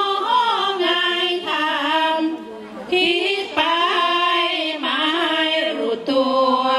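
Women singing sarabhanya, Thai Buddhist chanted verse, in a drawn-out melodic line of held, bending notes, with short breaks about two and a half seconds in and again near six seconds.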